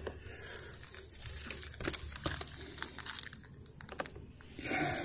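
Hand squeegee's rubber blade dragged across wet skylight glass: irregular scraping and rubbing with scattered clicks, louder near the end.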